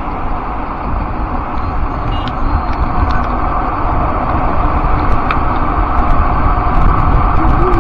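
Wind and road noise on a camera riding low on a moving bike, a steady rush that grows slowly louder, with a few faint ticks near the end.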